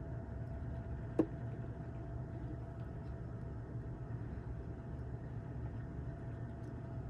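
Capacitor tester giving a steady tone over a low hum while checking a power-supply smoothing capacitor, the sound it makes when the capacitor is fine. A single sharp click comes about a second in.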